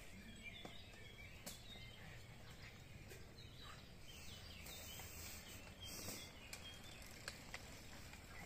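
Faint woodland ambience: birds chirping, with mountain bikes passing on a dirt trail. A few sharp clicks and a brief hiss come about five to six seconds in.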